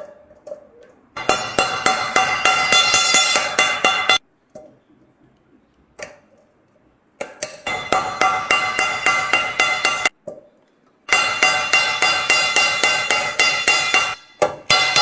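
Hammer rapidly tapping rivets on a metal vessel to fix its handle, with a ringing clink on every blow. Three runs of quick strikes, each about three seconds long, with short pauses between.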